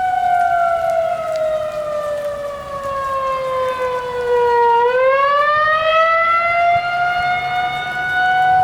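Outdoor tornado warning siren sounding a tornado warning: a single loud tone with strong overtones that slides slowly down in pitch for about five seconds, then climbs back up within about two seconds and holds steady.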